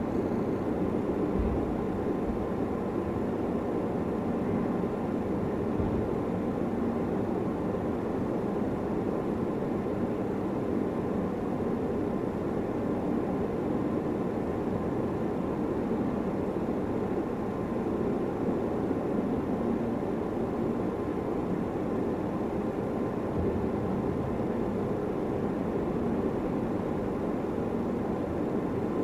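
Steady, even low-pitched background noise with a faint tone in it, unchanging throughout, without distinct pencil strokes standing out.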